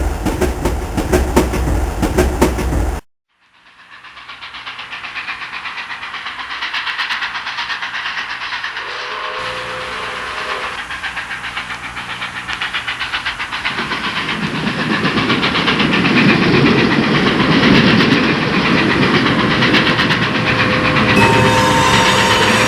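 Train running on rails with a rhythmic clickety-clack; it cuts off abruptly about three seconds in, and a second train recording fades in and builds, a deeper rumble joining about halfway through and steady whistle-like tones near the end.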